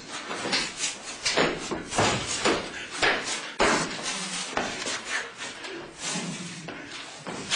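Irregular rapid scuffs, stamps and swishes, several a second, from a person lunging and spinning on a hard studio floor while whirling a long pole through the air.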